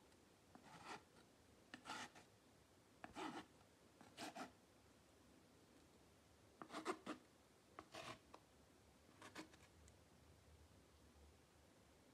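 Metal palette knife scraping and spreading thick paint across a canvas in short strokes, about one a second, with a pause of about two seconds midway.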